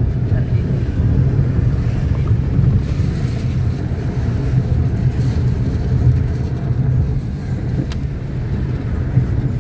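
A car's cabin while driving: a steady low rumble of engine and road noise heard from inside.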